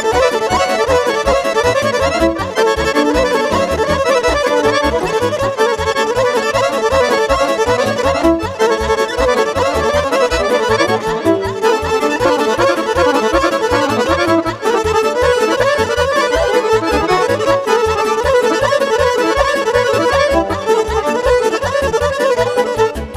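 Instrumental break of a Romanian party-music dance tune played live: a Roland accordion leads a fast, busy melody over a keyboard's steady beat.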